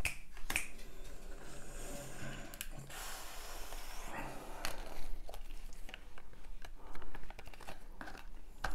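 Scattered small clicks and rustling from handling a tabletop flip-number scorecard as its number cards are turned over.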